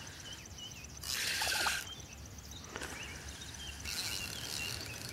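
A hooked grass carp splashing at the water's surface in two bursts, about a second in and again near four seconds in, while it is being played on the line. Faint bird chirps sound in the background.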